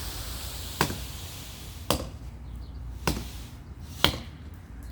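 Blows chopping into a tree limb, four strikes about a second apart, each a sharp crack.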